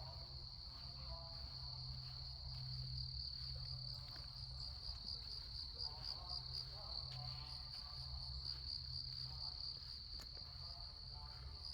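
Crickets in a forest chorus, keeping up a steady, high-pitched pulsing trill.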